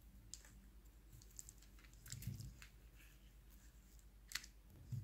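Near silence with a few faint small clicks of beads knocking together as a beaded piece strung on clear thread is handled, a small cluster about two seconds in and one more near the end.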